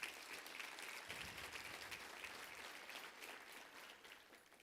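Faint applause from a congregation, many hands clapping, dying away near the end.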